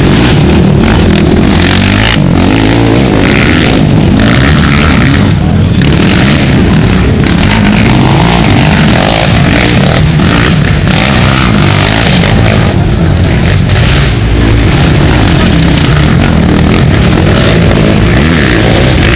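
Racing ATV engines revving hard, loud and unbroken, their pitch rising and falling as riders accelerate and shift.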